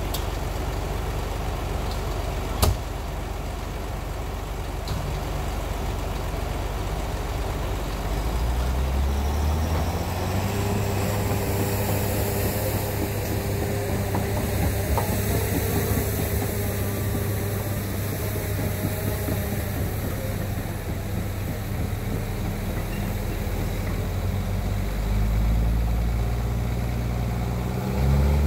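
Caterpillar 953D track loader's diesel engine running, revving up about nine seconds in and holding at higher revs as the machine moves off to recover a haul truck mired in sand. A single sharp knock sounds about three seconds in.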